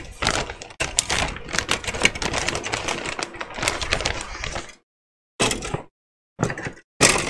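Clear plastic bag crinkling and rustling as a grey plastic sprue is slid out of it, a dense crackle of small clicks. It stops suddenly a little past halfway, then comes back as three short rustles near the end.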